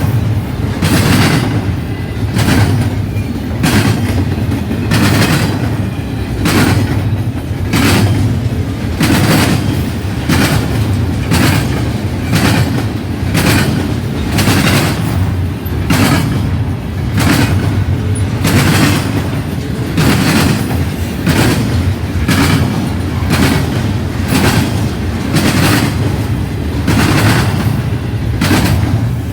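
Cars of a long intermodal freight train rolling past close by: a steady low rumble of wheels on rail with a sharp clack about once a second as the wheels cross rail joints.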